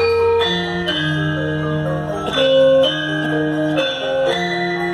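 Gamelan ensemble playing: metallophones struck with mallets ring out a melody of sustained notes, one note following another.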